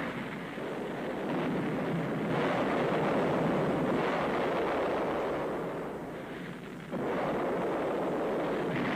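Rocket exploding in a fireball on the launch pad: a continuous heavy rumbling noise. It swells a couple of seconds in, fades somewhat, then comes back suddenly about seven seconds in.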